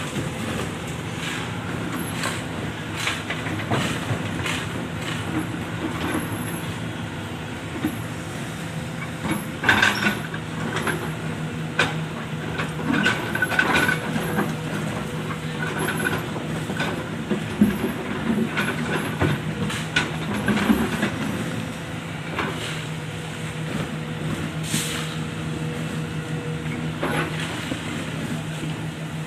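Excavator diesel engine running steadily while digging and loading soil, with irregular knocks and clatter from the working machinery, heaviest in the middle of the stretch.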